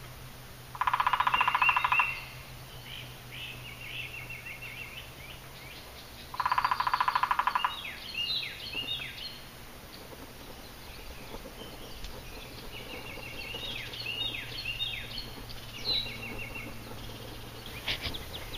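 A woodpecker drumming on a dead branch: two loud, very rapid bursts of knocks, each about a second long, about five seconds apart. Small songbirds chirp in between and afterwards.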